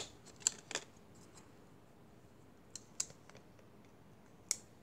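Sharp clicks of a small red-handled spring clamp being handled, opened and snapped onto glued paper envelopes to hold them while the glue sets. About three clicks come in the first second, two around the middle and one near the end.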